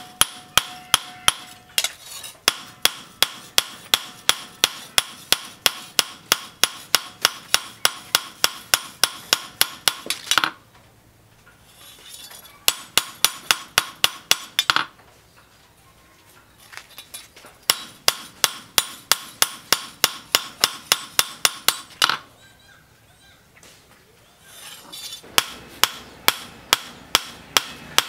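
Hand hammer striking a steel cleaver blade on a steel stake anvil, shaping the blade, with a bright metallic ring on each blow. The blows come in quick, even runs of about three a second, broken by a few pauses of one to three seconds.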